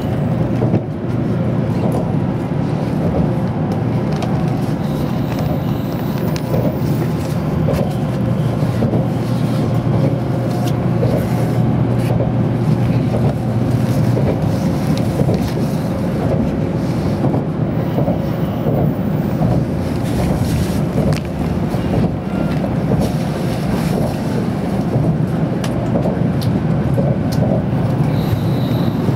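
Steady cabin noise inside a moving Tokaido Shinkansen car: a continuous low rumble of the running gear and wheels on the rails, with occasional faint clicks.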